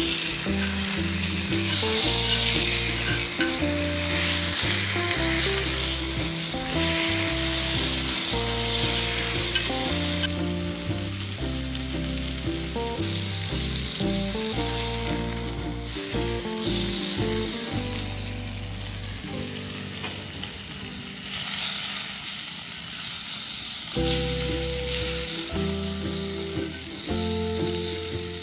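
Food frying and sizzling in a pan, a steady hiss that thins for a few seconds about ten seconds in, with background music underneath.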